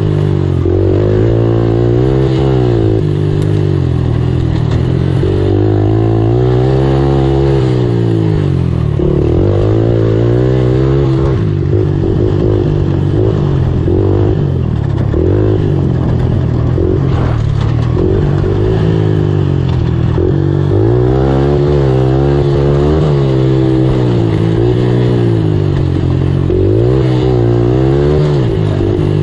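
A racing ATV's engine heard from on board, revving up and down continually as the rider works the throttle, its pitch rising and falling every second or two.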